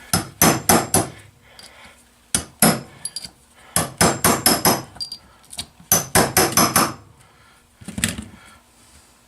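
Hammer blows beating a stuck seal out of its bore in an outboard-motor part, in quick runs of three to six strikes with short pauses between, and one last lone knock near the end. The seal is not coming out.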